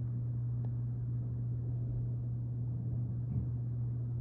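Steady low hum at one unchanging pitch, with a faint tick about two-thirds of a second in.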